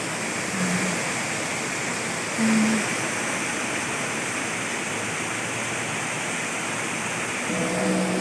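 Heavy rain pouring down, a steady hiss. Two brief low hums come through it about half a second and two and a half seconds in.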